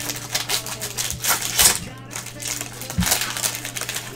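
Foil wrapper of a pack of baseball cards crinkling and tearing as it is ripped open by gloved hands: a run of quick crackly rustles, loudest about a second and a half in, with a thump about three seconds in.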